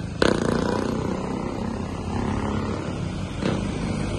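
Street traffic: vehicle engines running with a steady low rumble, a little louder a moment after the start.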